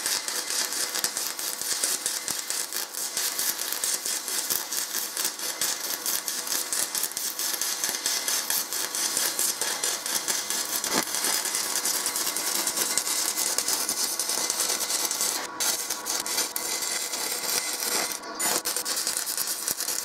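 Pulsed stick welding arc on cast iron, crackling and sputtering steadily. It drops out briefly twice in the last few seconds.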